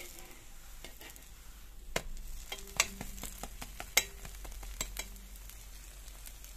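Pancake frying with a light sizzle in a nonstick pan, while a metal slotted spatula knocks and scrapes against the pan several times. The sharpest knocks come about two, three and four seconds in.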